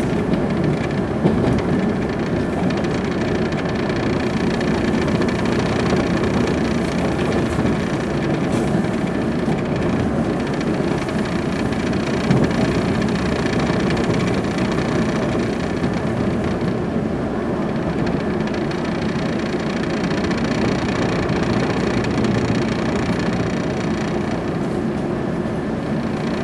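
Steady running noise heard from inside a passenger carriage of an electric train: an even rumble of wheels and motors.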